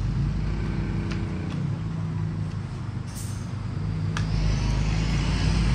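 A motor vehicle engine running steadily, getting louder about four seconds in, with a few light clicks over it.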